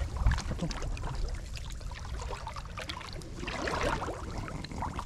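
Shallow water splashing and sloshing in irregular small splashes, with a louder splash about three and a half seconds in, over a low rumble.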